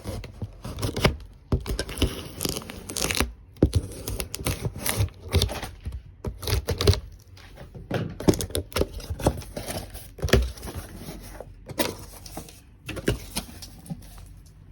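Packaging of a pressure washer being unboxed: cardboard and plastic torn, rustled and crinkled, with irregular clicks and knocks.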